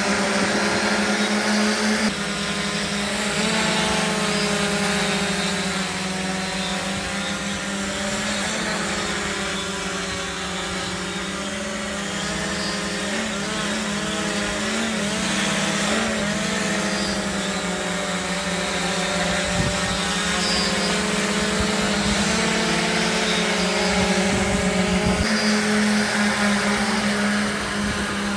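Electric motors and propellers of a quadplane VTOL model aircraft hovering in drone mode: a loud, steady buzz made of several tones that wobble in pitch as the motors change speed to hold it level.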